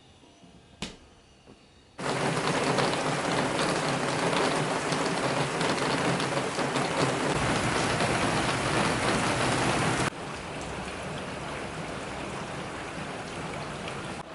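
A click, then water running from a tap: the flow comes on suddenly about two seconds in and drops to a softer, steady stream about ten seconds in.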